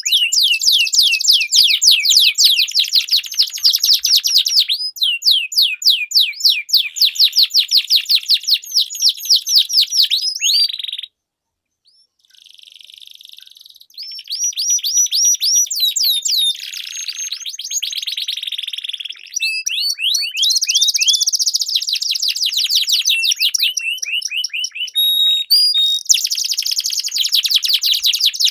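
Domestic canaries singing long rolling trills of rapid, repeated high chirps. The song breaks off briefly about eleven seconds in, then resumes with changing trill phrases.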